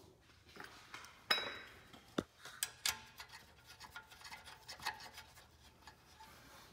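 Scattered small metallic clicks and scrapes of 10 mm nuts being threaded by hand onto steel studs, with a few sharper clicks about a second in, around two to three seconds in, and near five seconds.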